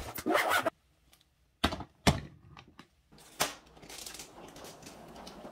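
Hard-shell suitcase being handled: a short rasp of its zipper, a few sharp clicks and knocks, then a faint steady rumble of the suitcase rolling on its wheels.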